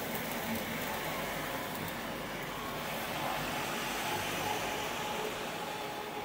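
Steady city-centre street noise of road traffic, with a double-decker bus passing close by.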